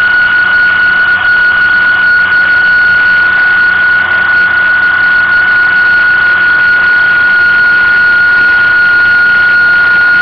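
Tractor running steadily at road speed, with a high-pitched whine held at one pitch over a constant rushing noise.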